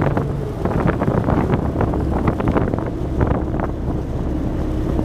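Ferry under way: a steady engine drone with water rushing past the hull, and wind buffeting the microphone in repeated gusts.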